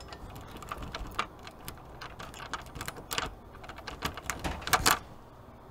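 Irregular small clicks and rattles of a door lock being worked open, with a louder click about three seconds in and another near five seconds.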